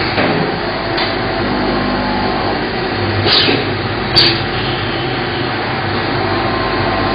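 Steady machine-shop noise from CNC machinery running, with two short hissing bursts about three and four seconds in.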